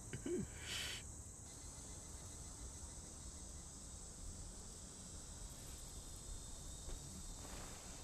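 Crickets chirring steadily, a continuous high-pitched field ambience, with a brief burst of noise just under a second in.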